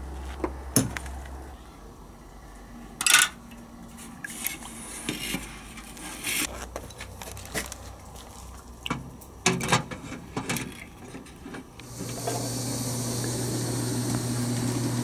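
Light metal clinks and taps as a carburetor body on a wire is handled over a metal can of carburetor cleaner and lowered into it. About twelve seconds in, a steady low mechanical hum starts suddenly and runs on.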